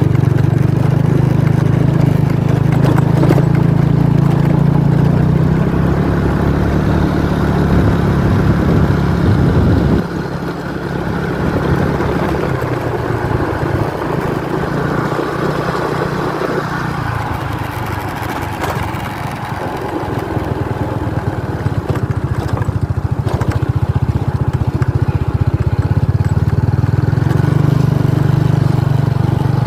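An engine running steadily with a low drone. It drops back about ten seconds in and builds up again after about twenty seconds.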